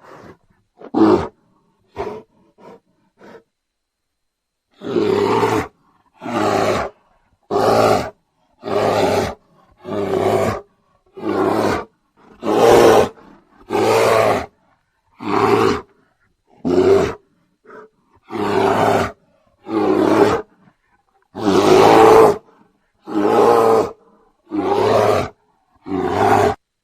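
Bear roaring over and over, one loud roar about every second and a half, after a few short, softer calls at the start.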